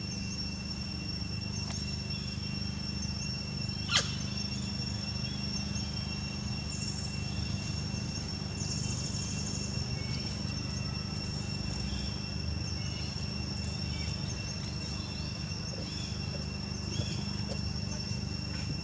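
A steady, high insect drone, cricket- or cicada-like, over a low steady rumble, with a few faint high chirps. A single sharp click sounds about four seconds in.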